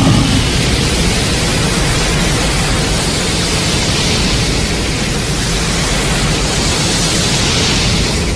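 A loud, steady rushing noise, with a hiss that slowly swells and ebbs; a noise sound effect.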